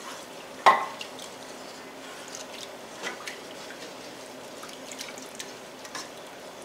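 A wooden spatula stirring broth in a stainless steel skillet: liquid sloshing and dripping, with light taps of the spatula on the pan. There is one sharp knock about a second in.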